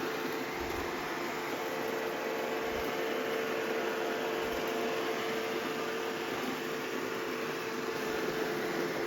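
iRobot Roomba i3+ robot vacuum running, a steady whirring with a constant humming tone.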